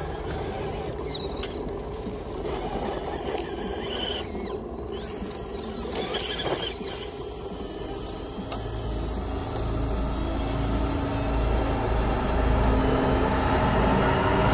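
Electric RC rock crawler grinding over leaves and up a rock, its motor and geared drivetrain giving a mechanical whir with a steady high whine that comes in about five seconds in.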